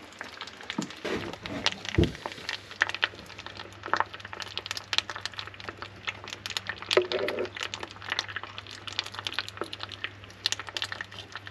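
Brush working hot tar out of a pan and dabbing it onto the bilge timbers, with a steady stream of sticky crackles and clicks and a dull thump about two seconds in.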